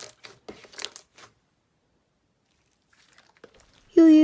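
Faint crackling and clicks like handling or rustling noise, then about two seconds of dead silence. Near the end a voice begins a long, steady held note, the start of a drawn-out "yuuu" sound.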